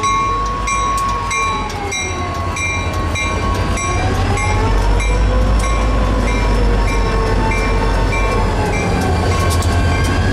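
Four diesel freight locomotives running slowly past at close range, their engines a steady low rumble that grows a little louder about four seconds in. A grade-crossing bell dings about twice a second, and a wavering whine slowly rises and falls over it.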